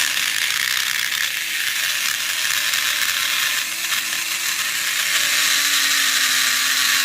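Power drill running steadily under load, its bit boring through the core of a Kaba padlock until it breaks through and makes a hole.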